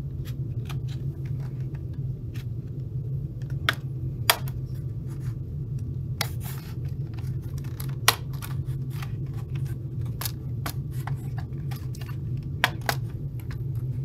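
Plastic snap clips of a Lenovo T14 Gen 3 laptop's bottom cover popping loose as a plastic pry tool works along the edge: a series of sharp clicks and snaps, the loudest about four, eight and twelve and a half seconds in, over a steady low hum.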